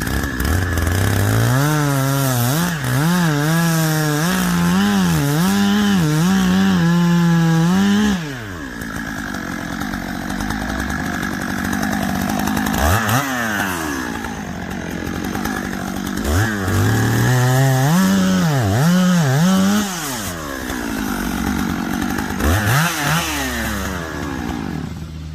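Two-stroke chainsaw running in long bursts of high revs, the pitch swinging up and down. Between the bursts it drops back to a lower speed, and it stops near the end.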